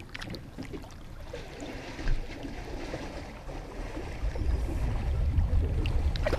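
Muffled water sounds from a camera held underwater: a low rumble of water moving around the housing that swells from about two seconds in, with one sharp knock near that point.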